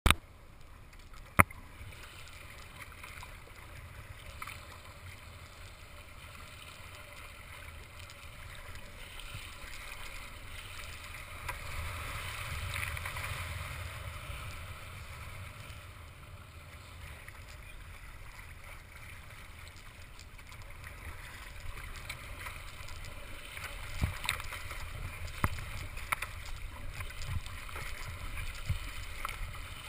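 Water splashing and gurgling against the hull of a sea kayak under way as it is paddled, swelling for a few seconds midway. A sharp knock about a second in and a few sharper splashes or knocks near the end.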